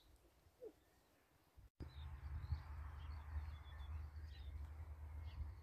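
Small birds chirping in short, scattered calls over a low rumble of wind on the microphone. The rumble begins suddenly after a nearly quiet first second and a half.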